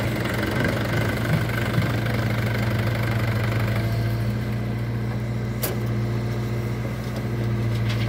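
Swaraj 843 XM tractor's three-cylinder diesel engine idling steadily, with one sharp click about five and a half seconds in.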